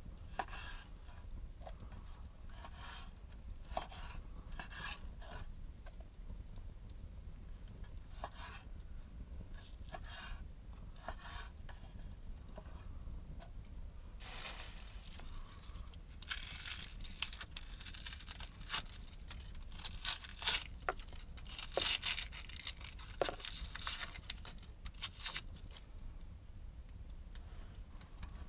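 Knife slicing pork belly on a wooden cutting board: faint, scattered taps and scrapes. About halfway through, a denser crinkling, tearing rustle takes over as the dry papery skin is peeled off a red onion.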